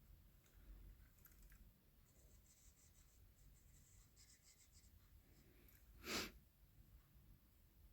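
Near silence with faint ticking and scratching of a chrome paint pen's fine tip working on a model fire truck, and one short, louder rush of noise about six seconds in.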